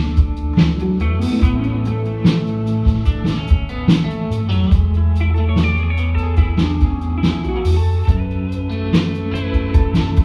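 Live band playing an instrumental passage: electric guitars over a drum kit keeping a steady beat.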